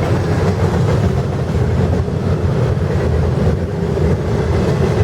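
CSX intermodal freight cars rolling past at speed: a loud, steady rumble of steel wheels on the rails.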